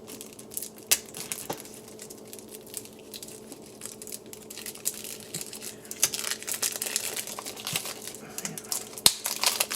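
Hands handling a trading-card deck and its packaging: irregular crinkling, rustling and small clicks, busier in the second half, with one sharp click near the end.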